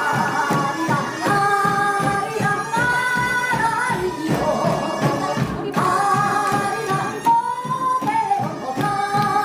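Music: a held, wavering melody line over quick, steady percussion strokes.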